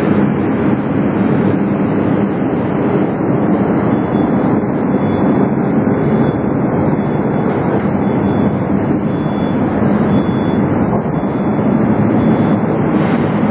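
Loud, steady rumble of a Moscow metro train and its underground station, with no speech and no distinct knocks.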